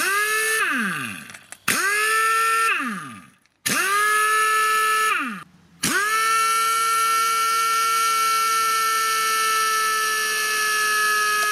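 Pneumatic impact wrench run free in four bursts, the last about five and a half seconds long. Each burst spins up quickly to a steady high whine and winds down with a falling pitch when released.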